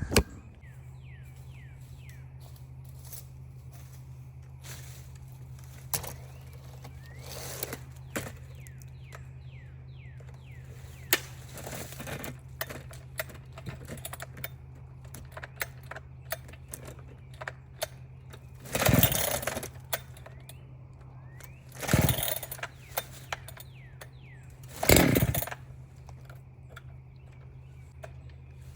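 Holzfforma two-stroke chainsaw idling steadily, revved up in three short bursts of throttle about two-thirds of the way through and near the end.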